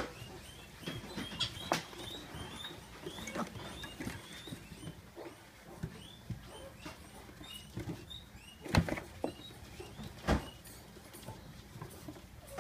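Pot-bellied piglets shuffling and pattering about on wood shavings and hay in a plastic bin, with many small scratchy ticks and rustles. Two louder knocks stand out about two thirds of the way through.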